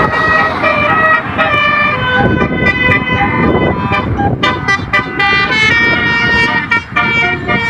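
Basuri telolet multi-tone bus horn playing a fast tune, its notes jumping in pitch several times a second, over dense noise low down.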